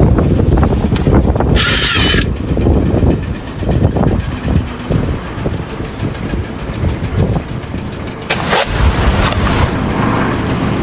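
Heavy vehicle or machine engine running loudly with an uneven rumble, broken by a short burst of hissing about two seconds in and a longer hiss around eight seconds in.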